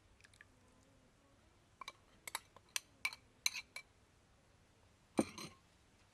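Kitchenware clinking: a quick run of about eight light clinks of glass or dishes, then one louder knock near the end.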